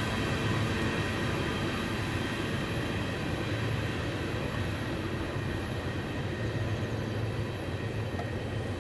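Train rolling past on the rails: a steady rumble of wheels and cars that eases slightly in loudness toward the end.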